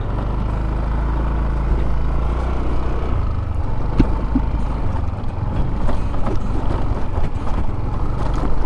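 Yamaha Aerox 155 scooter's single-cylinder engine running steadily under way, over a continuous rush of wind and road noise, with a couple of sharp knocks about four seconds in.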